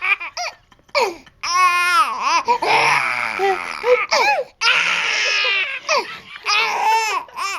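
A young child laughing hysterically, so hard that the laughter turns into crying: long, high-pitched laughing wails broken by short pauses for breath.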